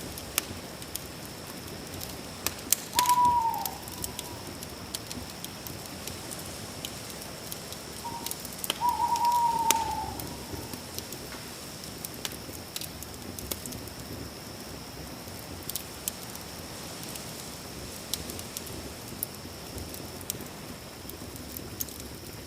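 Campfire crackling, with scattered sharp pops over a steady hiss and a steady high tone. A bird calls twice in a pitch that slides downward, briefly about three seconds in and longer about nine seconds in; these calls are the loudest sounds.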